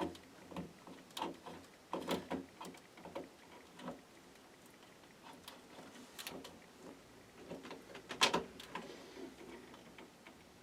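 Small plastic clicks and rustling as a power supply's 24-pin motherboard cable and connector are handled and lined up with the motherboard socket, with one sharper click about eight seconds in.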